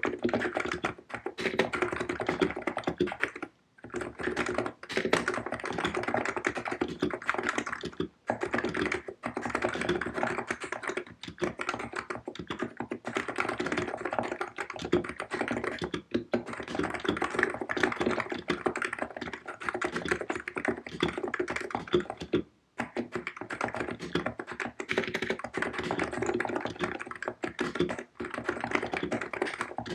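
COX Empress electrostatic capacitive keyboard with 50 g switches being typed on fast and continuously: a dense run of keystroke clacks, broken by a few brief pauses.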